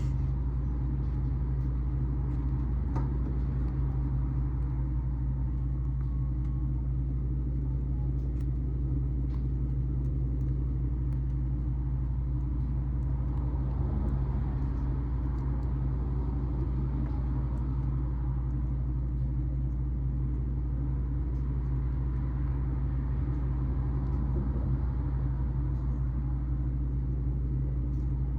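Steady, unchanging low rumble, with a few faint ticks on top.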